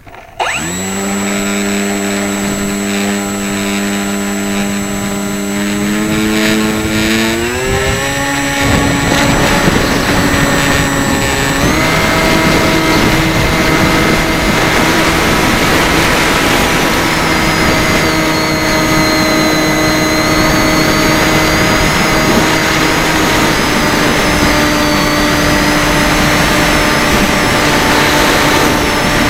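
FPV drone's electric motors and propellers starting up suddenly, then a loud steady whine with rushing propeller noise. The pitch climbs twice as the throttle is raised, about seven seconds in and again about twelve seconds in.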